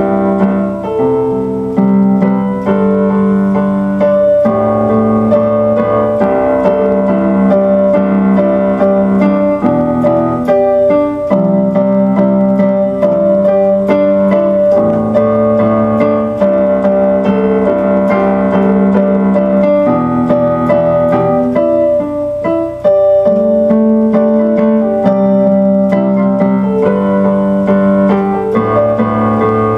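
Instrumental keyboard music in a piano sound: chords change every couple of seconds over a high note held through most of it.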